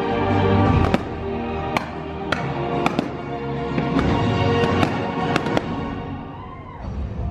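Fireworks bursting overhead in a quick series of sharp bangs, about ten of them, over loud music. The music dips down near the end.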